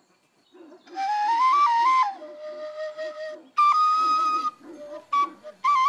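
Background music: a high flute melody in stepped, held notes starting about a second in, breaking into short notes near the end, over a faint low repeating accompaniment.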